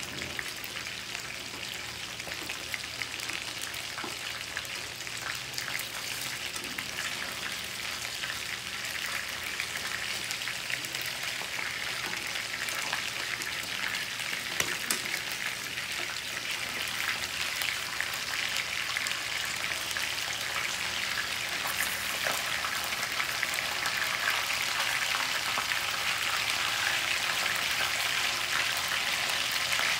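Chicken wings frying in oil in a wok: a steady sizzle with scattered pops and crackles, growing louder toward the end as the raw wings are pre-cooked.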